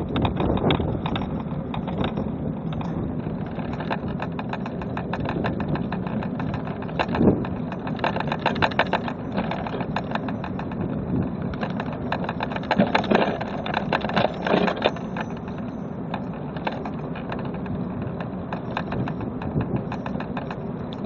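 A machine's engine running steadily while wood cracks and crunches, in dense runs of sharp cracks through the middle, as trees are cut and broken up.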